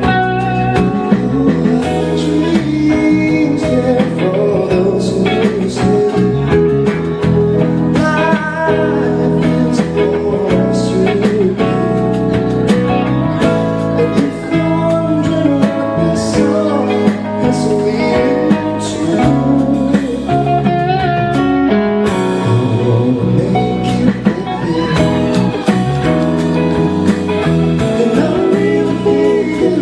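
Live band playing a soft-rock ballad: a male lead voice singing over electric guitar, keyboard, bass and drums.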